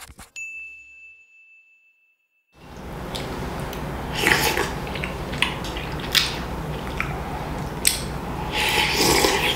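A single chime tone holds for about two seconds and cuts off. A person then eats tteok-mandutguk (rice cake and dumpling soup) with a metal spoon: sharp clicks of the spoon on the ceramic bowl, chewing, and slurps of broth, the longest slurp near the end.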